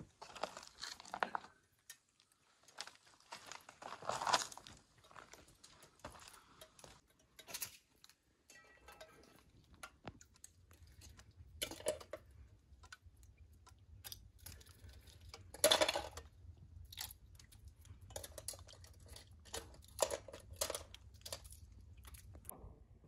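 Irregular crunches and knocks of ice being broken from icicle-hung rock and gathered into a metal pot, with a faint low rumble from about halfway through.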